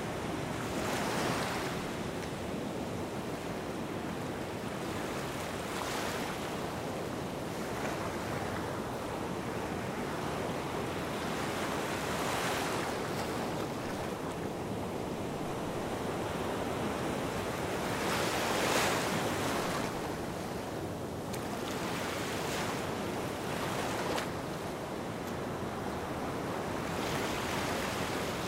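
Small waves washing onto a sandy beach: a steady wash of surf that swells every five or six seconds, the strongest surge a little past halfway.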